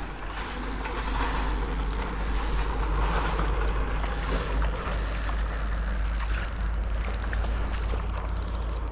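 Wind buffeting the microphone: a steady low rumble with a rushing hiss over it. A fast run of faint ticks comes in near the end.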